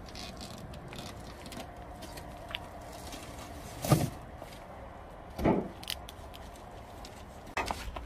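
A plastic- and cardboard-wrapped refrigerator being slid off a truck bed and set down on pavement: dull knocks and scrapes, the loudest about four seconds in, another about a second and a half later and a third near the end.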